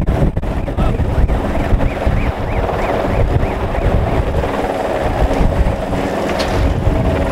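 Helicopter hovering overhead with its rotor running steadily, holding a slung load, with wind buffeting the microphone.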